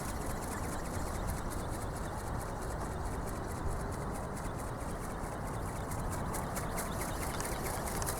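Strong wind buffeting the microphone, a steady rumbling rush, with a faint fast, even ticking over it.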